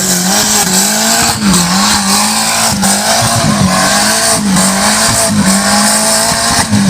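Off-road competition vehicle's engine revving hard and held high, its pitch dipping briefly and climbing back every second or so as the throttle is worked, with a loud hiss over it.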